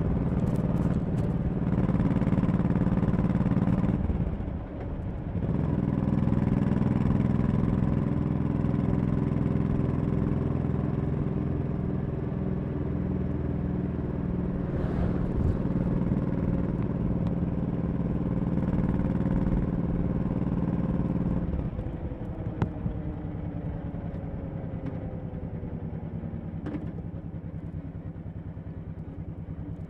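Honda Shadow 1100 V-twin motorcycle engine running steadily under way, with a brief drop in level about five seconds in. About two-thirds of the way through the throttle closes and the engine note falls slowly as the bike slows.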